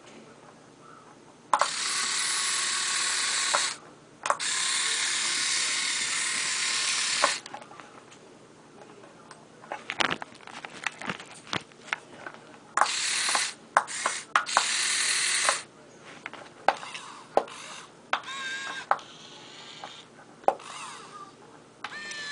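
Kyosho Komatsu remote-control excavator's small electric motors and gearboxes whining in runs of a few seconds at a time as the boom and arm move, with scattered clicks and ticks between the runs.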